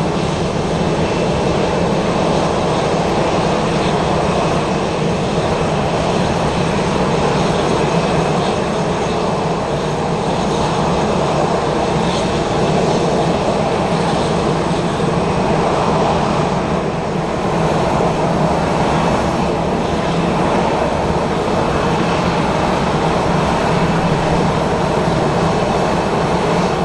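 Jet airliner engines running, loud and steady throughout.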